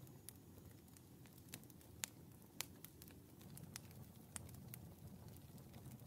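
Wood fire crackling: split logs burning in a fireplace, giving irregular sharp pops and snaps, the two loudest a little after two seconds in, over a low steady rumble.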